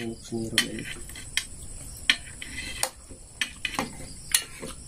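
Spoons and forks clinking and scraping against plates as two people eat, several sharp clinks spaced irregularly, over a faint steady high-pitched buzz.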